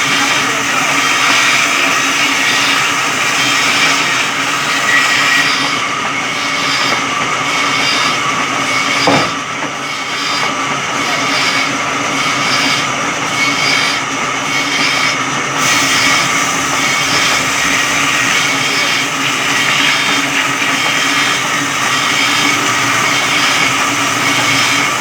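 Electric sawmill saw running steadily through wood, a loud continuous mechanical whirr with a low hum. A single sharp knock sounds about nine seconds in.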